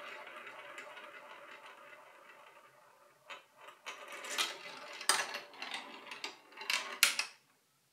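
Marbles rolling and clicking through a plastic Lego-sized Hubelino-style marble run. A rattle fades over the first three seconds, then several short bursts of clattering clicks follow, stopping shortly before the end.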